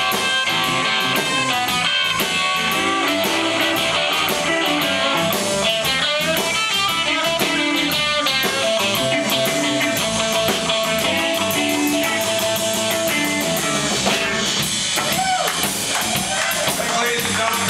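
Live blues-rock band playing: an electric guitar takes a lead line over bass guitar and a drum kit, holding one long note in the middle and bending notes near the end.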